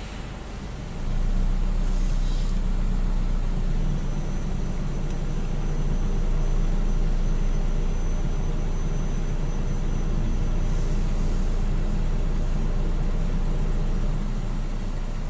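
Belanger FreeStyler in-bay automatic car wash running its brush stage on a car: the wraparound brushes and water spray give a steady, loud machine rumble. It steps up about a second in and eases off slightly near the end.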